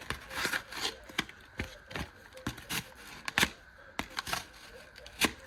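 Folding knife blade slicing through cardboard: about a dozen quick, sharp cuts and scrapes at an uneven pace, testing how sharp the edge is.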